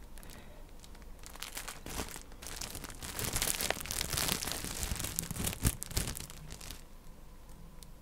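Crinkling and rustling of a cross-stitch kit's packaging being handled, with sharp crackles, busiest in the middle of the stretch and stopping about seven seconds in.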